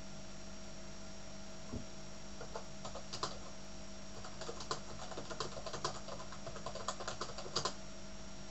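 Typing on a computer keyboard: a run of irregular keystrokes that starts about two seconds in and stops shortly before the end.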